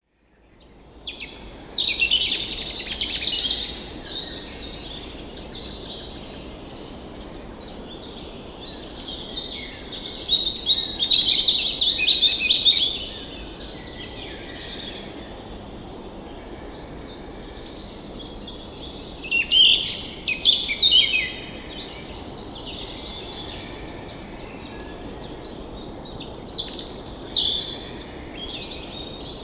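Songbirds singing in several bursts of high, rapid chirps and trills, over a steady low rush of flowing stream water.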